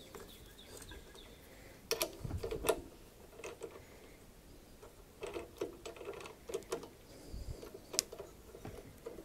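Light clicks and knocks from handling at a small metal lathe, with a couple of low thumps. They come in scattered clusters, with a sharp click near the end.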